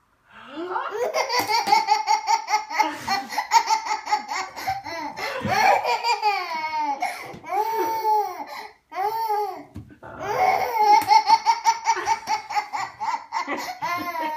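Baby laughing hysterically: long runs of quick, high-pitched laughs, broken by a short pause about ten seconds in.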